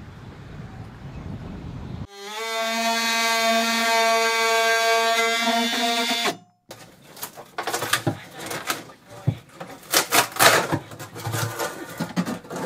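DeWalt XR cordless oscillating multi-tool running steadily at one constant pitch for about four seconds, then cutting off abruptly. It is followed by a run of irregular knocks, cracks and scrapes as rotten fiberglass and debris are worked loose by hand inside a locker.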